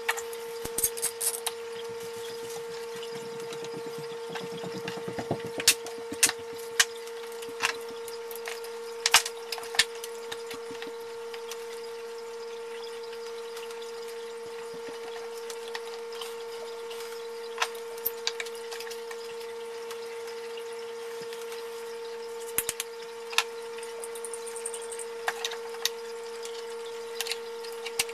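Clamps being fitted and tightened on a glued-up guitar neck blank: scattered clicks and knocks of clamp parts against wood, over a steady hum.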